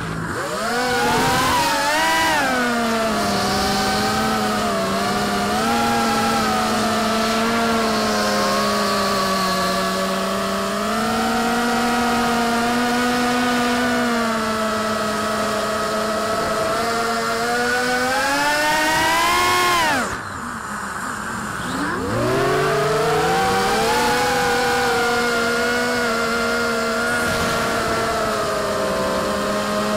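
FPV quadcopter's electric motors and propellers whining, heard from the quad's onboard camera. The pitch shifts up and down with the throttle. About twenty seconds in it drops sharply as the throttle is cut, then climbs back up over the next few seconds.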